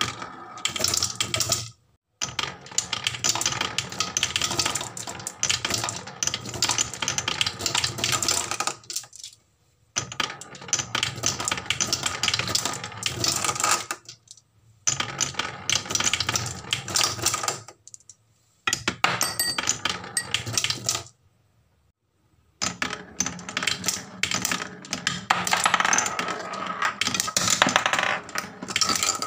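Marbles rolling and clattering down wooden marble-run slopes, ticking rapidly against the wooden pegs over a low rolling rumble. The sound comes in runs of several seconds, broken by a handful of brief silences.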